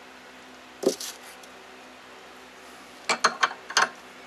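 Sharp hard clicks and knocks of a wooden yo-yo blank and chuck key being handled in a metal lathe scroll chuck, with the lathe stopped. There is one knock about a second in, then a quick run of about five clicks near the end.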